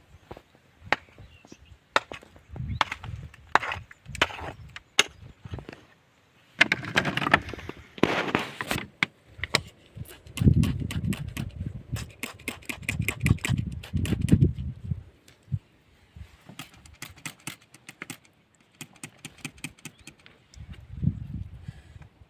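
Hand-digging and chipping at rock: a run of sharp knocks and clicks, with scraping and rustling about seven to nine seconds in and heavier dull thuds from about ten to fifteen seconds in.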